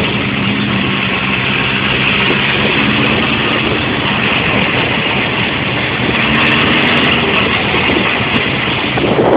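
Honda CB750 motorcycle's inline-four engine running at a steady road speed while riding, under a steady rush of wind and road noise.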